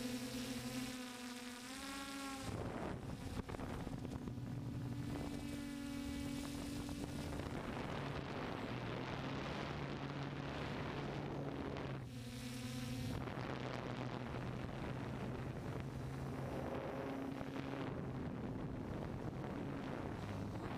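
DJI F550 hexcopter's six brushless motors and propellers buzzing in flight, a steady whine that shifts and steps in pitch as the motor speeds change, over a rush of wind noise.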